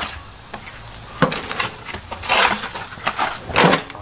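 Hoes and shovels scraping and chopping into packed dirt and stones, in several separate rough strokes a second or so apart.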